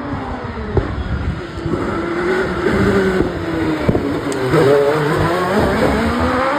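Single-seater hillclimb racing car's engine revving hard as it takes a series of bends, its pitch rising and falling with the throttle, with a couple of sharp cracks. It gets louder as the car comes close and passes by.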